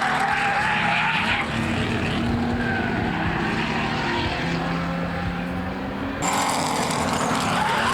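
Racing car engines running hard on track, a steady, continuous sound at near-constant pitch. About six seconds in, the sound suddenly becomes brighter and slightly louder.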